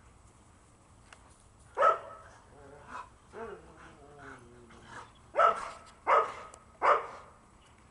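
Dog barking: one bark about two seconds in, then three more about a second apart near the end, with softer whining between them.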